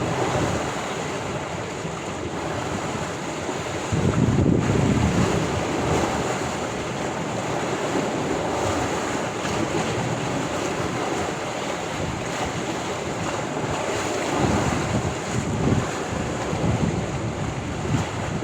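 Sea waves washing onto the shore in a continuous rush, swelling louder about four seconds in and again near the end, with wind buffeting the microphone.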